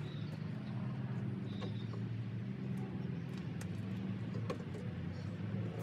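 A steady low hum with a few faint, sharp metal clicks from a wrench working the mounting bolts of a truck engine's air compressor.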